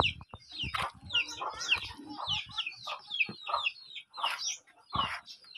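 Chickens clucking: a busy run of short, high, falling calls several times a second, with faint low knocks underneath.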